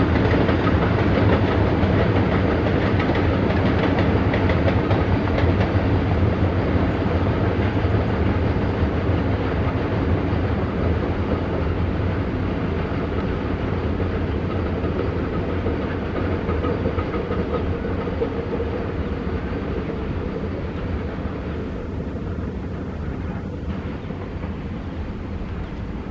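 Cement freight train's wagons rolling along the track, a steady running noise that slowly fades.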